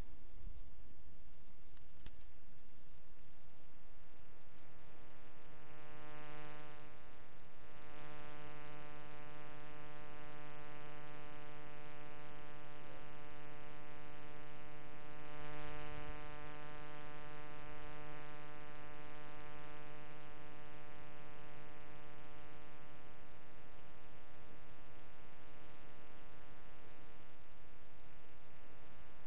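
Cicadas buzzing in chorus: a continuous high-pitched buzz that swells slightly twice, over a faint low hum.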